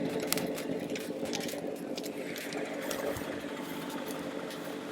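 A motor hums steadily, with a few sharp clicks over it.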